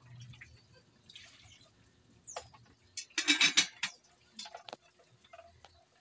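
Pot of shellfish and greens simmering in broth, bubbling with scattered pops and drip-like clicks, and a brief louder burst of rapid clicks about three seconds in.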